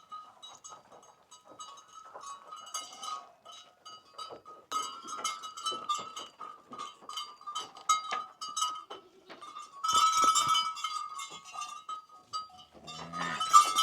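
A herd of goats in a pen: many small clicks and clinks over a steady high tone, louder about ten seconds in, with a short low call near the end.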